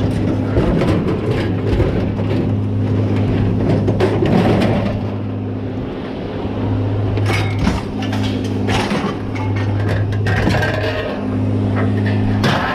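A vehicle engine running steadily, with irregular clanks and clatter of scrap metal being unloaded over it.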